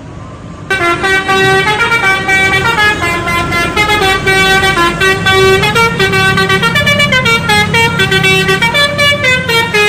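Bus telolet horn playing a fast tune of short, quickly changing horn notes. It starts about a second in, over the low sound of a bus engine running.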